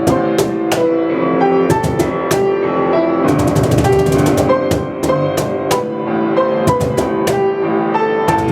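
A piano and percussion played live in a fast instrumental piece: piano chords and runs under frequent sharp drum hits.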